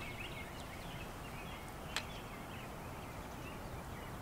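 Small birds chirping faintly over a steady outdoor background hiss, with one sharp click about two seconds in.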